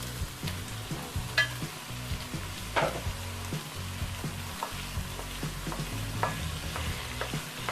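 Chicken pieces frying with a steady sizzle in oil and spice paste in a wok, stirred so that the utensil scrapes and clicks against the pan now and then.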